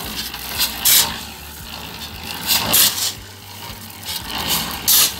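CSM concrete mixer running with a steady low hum while gravel is shovelled in: a few sharp, gritty scrapes and rattles as the steel shovel bites into the gravel pile and tips stone into the turning drum.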